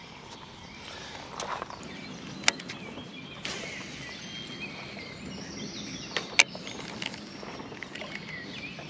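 Quiet outdoor ambience by the water, broken by a few soft rustles and two sharp clicks, one about two and a half seconds in and another about six and a half seconds in.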